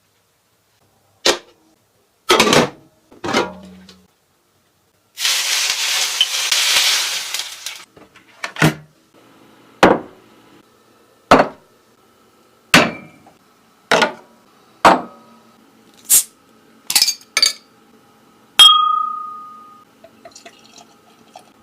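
Dishes and utensils clinking and knocking: about ten sharp separate clinks roughly a second apart, some ringing briefly. A few seconds in, before the clinks begin, there is about three seconds of steady hiss.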